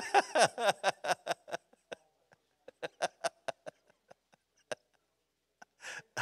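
Laughter in short, breathy bursts that trail off, with a few more chuckles a few seconds later.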